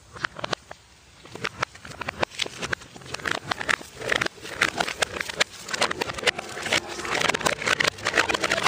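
Coca-Cola drink cans tumbling and bouncing down concrete steps: a run of irregular knocks and clanks that grows busier toward the end.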